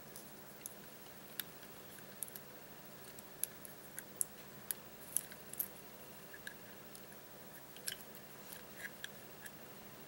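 Faint, scattered small metallic clicks and taps from handling a pin-tumbler lock cylinder as it is taken apart and its plug pushed out.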